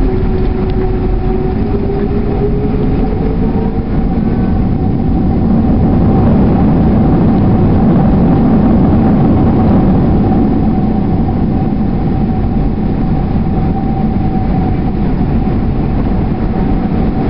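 Boeing 767 landing rollout heard from inside the cabin: a loud, steady rumble of engines and wheels on the runway under a constant whine, swelling louder for a few seconds in the middle and then easing as the jet slows.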